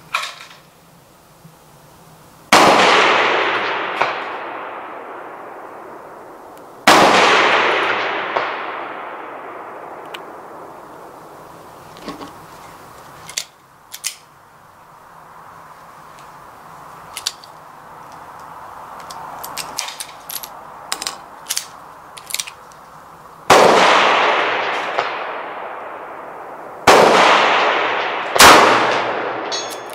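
Dan Wesson 715 .357 Magnum revolver firing five shots, irregularly spaced, each a sharp report followed by a long echo fading away over several seconds. Fainter sharp clangs come in between, from bullets striking a steel target about 200 yards downrange.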